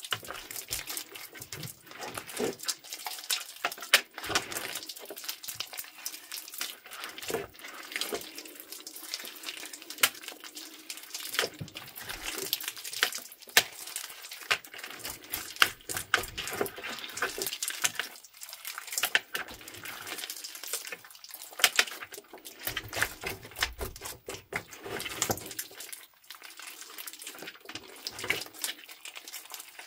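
Hands kneading, stretching and squeezing thick slime full of beads: dense, irregular wet squishing and crackling clicks.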